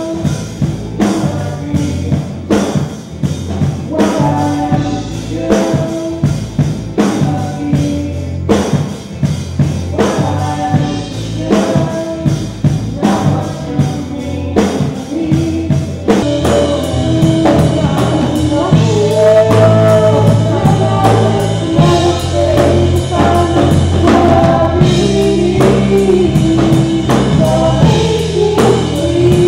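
A band playing a song with singing over a drum kit keeping a steady beat. It gets louder and fuller about halfway through.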